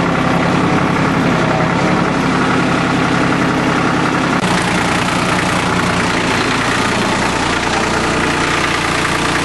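A diesel engine idling steadily, its even note shifting slightly about four and a half seconds in.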